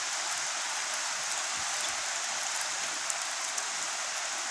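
Steady hiss of running water from the river's cascade, with a few faint ticks.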